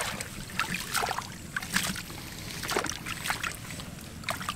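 Irregular small splashes and sloshing of water, a few short ones a second, over a steady watery hiss: hands and body moving through shallow, grassy floodwater.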